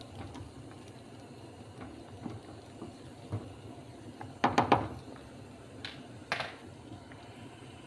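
Coconut-milk stew simmering in a metal pot, with a low steady bubbling. A short clatter of knocks comes about halfway through, the loudest thing heard, and a smaller one follows about two seconds later.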